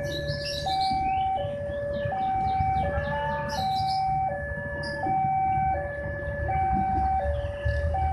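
Railway level-crossing alarm sounding a steady high-low two-tone, switching pitch about every two-thirds of a second, the warning that a train is approaching. A low rumble runs underneath.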